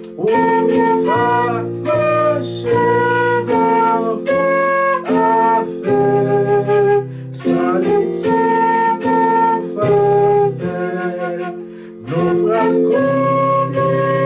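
Concert flute playing a gospel song melody in held notes, some with vibrato, over a steady low accompaniment, with a short break in the music about twelve seconds in.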